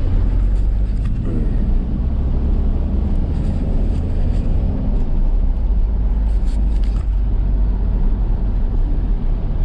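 A vehicle driving along, giving a steady low rumble of engine and road noise, with a few faint clicks.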